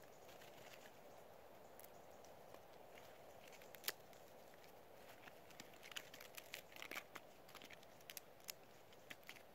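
Near silence: a faint steady background hiss with scattered small clicks and crackles, one sharper click about four seconds in and more of them in the second half.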